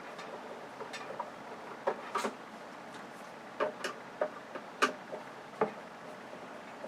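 Irregular light clicks and taps from an LCD TV's plastic and metal frame being pried and handled off, about seven sharp clicks spread unevenly.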